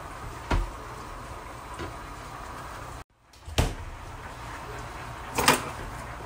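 A few sharp kitchen knocks and clatters over a steady background hiss, the loudest about half a second in and two more later. The sound cuts out for a moment about three seconds in.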